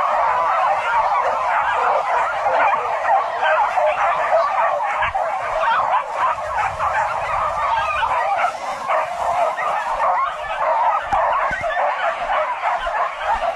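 A pack of dogs barking and baying together, many overlapping calls without a break.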